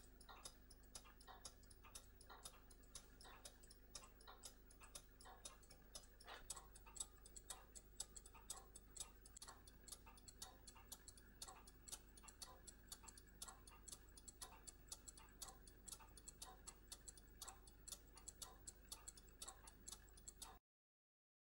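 Mechanical pocket watch ticking: a quick, even train of soft ticks from its escapement, which stops abruptly near the end.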